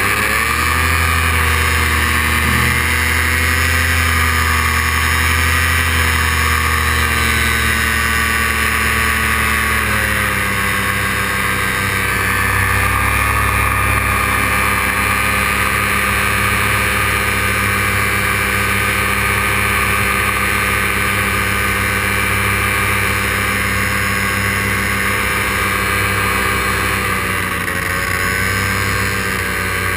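Paramotor engine and propeller running at high power through a takeoff climb, a steady drone whose pitch drops a little about ten seconds in and wavers again near the end as the throttle is eased.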